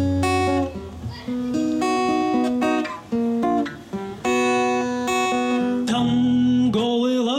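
Acoustic guitar playing an instrumental passage of the song's chords between verses. A singing voice comes back in near the end.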